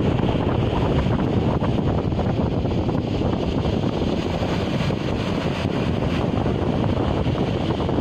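Strong wind buffeting the microphone in a steady, heavy rumble, over storm surf breaking on the shore.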